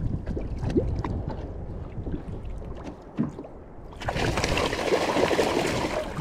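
Water sloshing against a plastic kayak hull with low wind rumble. About four seconds in, a sudden loud burst of splashing starts as a hooked Spanish mackerel thrashes at the surface beside the kayak.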